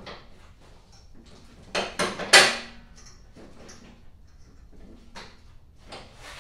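Metal tools and hardware clinking and clattering while the handlebars of a new snowblower are assembled, with a burst of sharp clanks about two seconds in, the loudest just after, and a few lighter knocks near the end.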